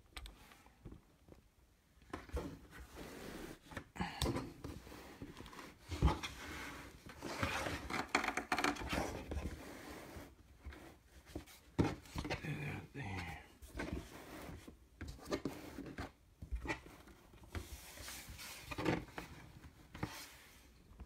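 Handling noises on a tabletop: a mat being slid and laid down and things set in place, with irregular light knocks, rubs and scrapes.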